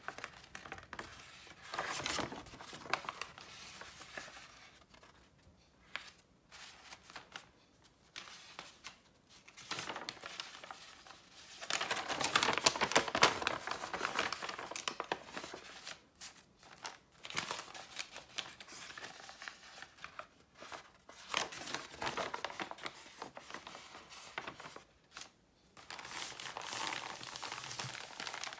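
Sheets of dyed paper being handled and crinkled, rustling in irregular bursts with short pauses between, loudest about halfway through.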